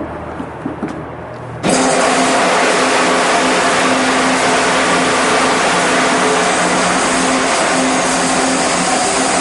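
Cherry Burrell 200-gallon stainless steel liquefier's high-shear impeller running: a low steady hum, then a loud, steady whirring starts abruptly about two seconds in and holds.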